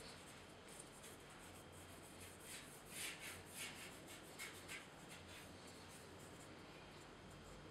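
Faint scratchy swishes of a dry ink brush dragged across paper in quick horizontal strokes, with a fast run of strokes about three seconds in.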